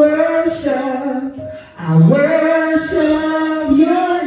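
A woman singing into a handheld microphone in long held notes that slide between pitches, with a short break for breath about a second and a half in.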